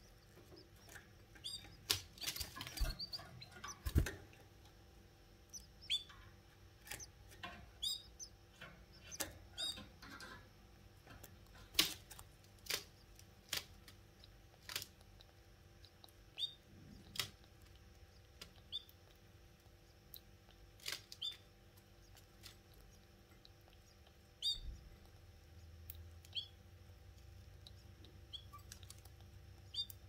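Canaries giving short, high chirps, one roughly every second, over rustling and sharp knocks in the nest, busiest in the first few seconds.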